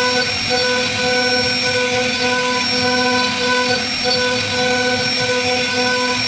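CNC wood router carving a relief into a wooden staircase pillar: a steady spindle whine over the noise of the bit cutting wood, with machine tones that break off and resume about once a second as the cutter moves.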